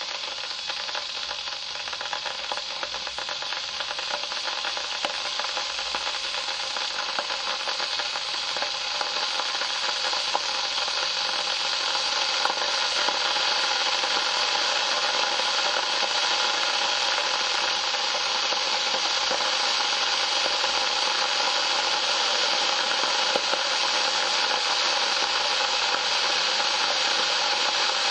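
Electric kettle heating water: a crackling hiss that grows louder over the first dozen seconds or so, then settles into a steady rushing sound as the water heats toward the boil.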